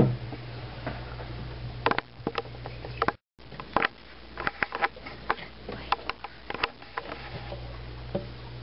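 Scattered sharp clicks and light knocks over a steady low hum; the sound cuts out completely for a moment about three seconds in.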